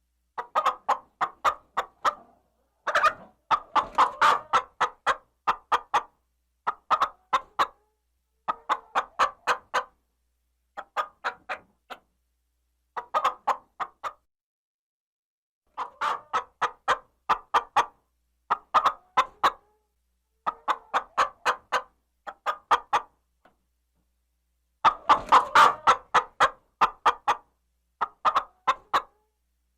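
A chicken clucking in short runs of quick, sharp clucks, group after group with brief silences between them. A louder, busier flurry of clucks comes near the end.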